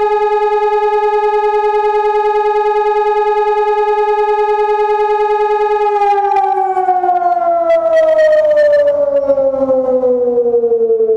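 Electronic civil-defence siren, which the uploader takes for a Hörmann ECN 600, sounding the fire alarm signal: one loud steady tone held for about six seconds, then sliding slowly down in pitch as the blast winds down.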